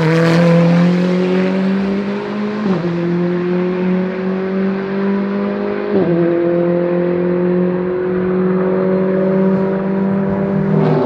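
GT4 race car engine accelerating through the gears. The pitch climbs steadily and drops sharply at two upshifts, about three and six seconds in, and the sound grows duller later on. Right at the end a second car comes in louder.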